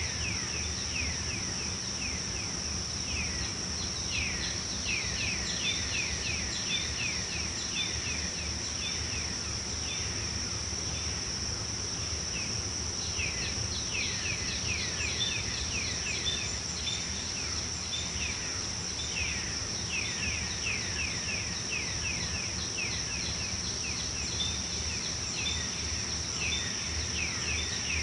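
Tropical forest ambience: a steady high-pitched insect drone, with bursts of many short falling chirps coming and going over it and a low hum beneath.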